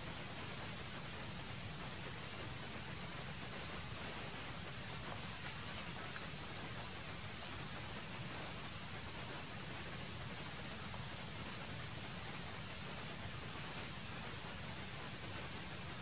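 Steady, high-pitched insect drone, unbroken, over a constant background hiss.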